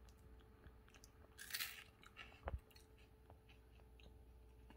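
Faint crunching and chewing of a crunchy Fried Chicken Cheetos snack in the mouth, with one louder crunch about a second and a half in and a soft low thump about a second later.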